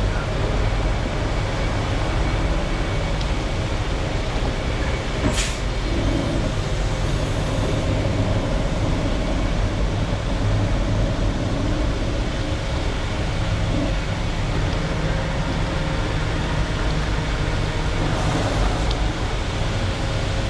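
Concrete mixer truck running steadily: its diesel engine and turning drum make a low, even noise while flow fill pours out down the chute. There is one brief click about five seconds in.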